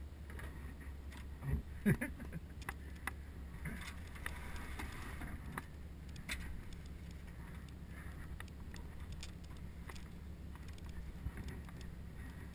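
Muffled knocks and scrapes of a plastic kayak sliding off a truck bed and over a guardrail in a seal launch. The sharpest knocks come about a second and a half in, over a steady low rumble.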